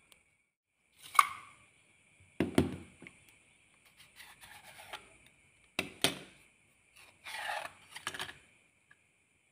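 Handling noises of small plastic parts and tubes: several sharp knocks as pieces are picked up and set down on a cutting mat, with rustling and scraping in between.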